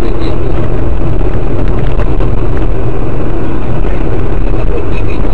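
Steady, loud vehicle noise: a car's engine and road rumble, unchanging throughout.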